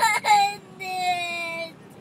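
A young girl crying: a short sobbing catch of breath, then one long drawn-out wail that slowly falls in pitch and breaks off shortly before the end.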